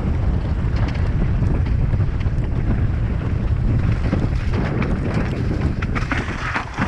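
Wind rushing over a helmet camera's microphone as a mountain bike descends fast over rock slabs, with the tyres rumbling on the rock. Sharp clatters and knocks of the bike over rocks come thicker in the second half.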